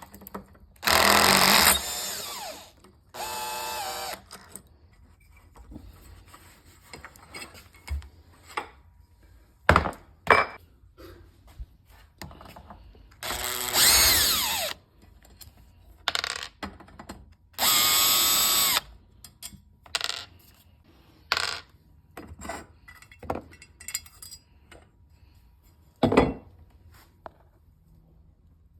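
Cordless power drill run in four short bursts of about a second, driving or backing out screws on a Bird electric scooter, the motor's whine dropping in pitch as it spins down. Short clicks and knocks of parts and screws being handled come between the bursts.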